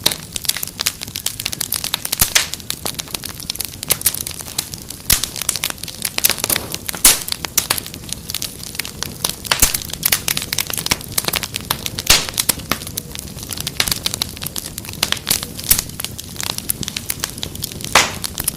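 Wood fire crackling in a fireplace: irregular sharp pops and snaps, several a second, over a steady low rush from the burning logs, with a few louder snaps now and then.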